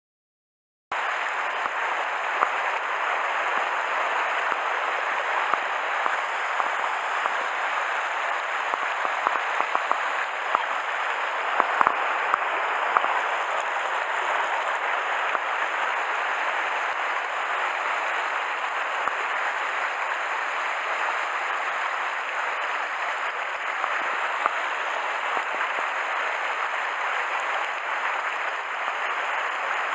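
Mountain stream water rushing steadily, with faint scattered ticks, starting abruptly about a second in.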